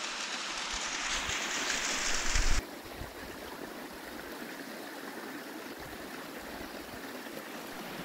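Water of a small mountain waterfall pouring down a rock face: a steady rushing hiss, with a few low bumps near the end of it. About two and a half seconds in it cuts off abruptly to a fainter, steady rush of flowing water.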